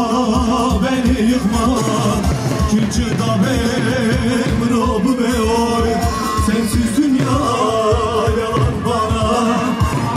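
Kurdish halay dance music played live with a singer's voice over a steady drum beat.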